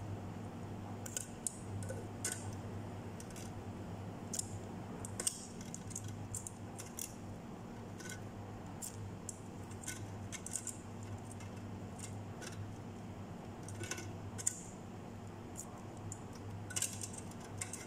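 Metal kitchen tongs clicking and scraping against an air fryer's wire-mesh basket while pieces of fried fish are pried loose and lifted out; the fish seems to stick to the mesh. Light, irregular clicks over a steady low hum.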